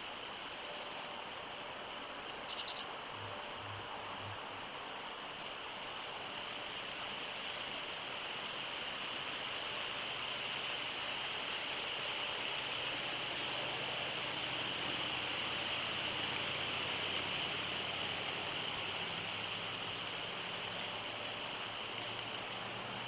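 Outdoor ambience dominated by a steady high-pitched insect drone, with a brief bird chirp about two and a half seconds in. A faint low hum comes in about halfway through.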